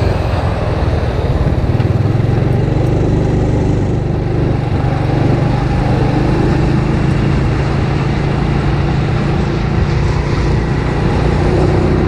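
Honda scooter's single-cylinder engine running steadily at cruising speed, with wind rushing over the camera microphone.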